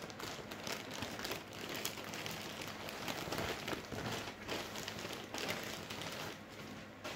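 Plastic packaging crinkling and rustling as a parcel is torn and opened by hand: a dense, irregular run of crackles.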